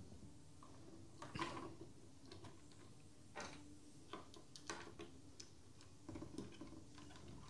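Faint, irregular small clicks and taps of metal hardware as the thumb nuts of an EK Supremacy MX waterblock are turned down by hand onto its mounting screws.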